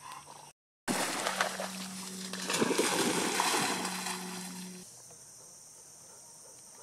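A yellow retriever splashing as it wades through a shallow pond, loud from about a second in and dying away about five seconds in.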